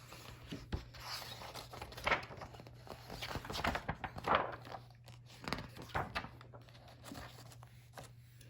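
Paper rustling and crinkling in irregular bursts, as the pages of a picture book are handled and turned.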